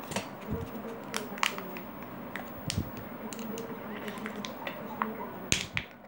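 Irregular clicks and crackles of stiff plastic lip balm packaging being pulled and snapped away by hand, over a faint steady hum.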